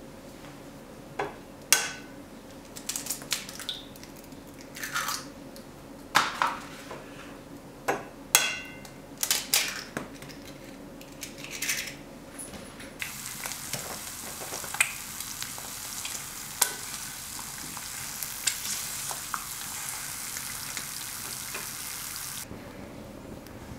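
Eggs being cracked into a cast iron frying pan: a run of sharp knocks and taps. Then, from about halfway in, a steady sizzle of eggs frying in the hot pan on a wood-burning cookstove, which cuts off suddenly near the end.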